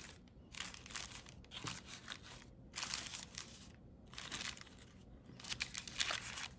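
Accordion-folded coffee-filter paper crinkling in irregular bursts as fingers spread and fluff out the pleated wings of a paper butterfly.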